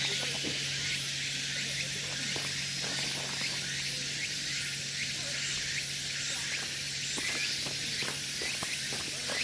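Outdoor nature ambience: a steady, high hiss with small repeated chirps and scattered faint ticks over a low steady hum.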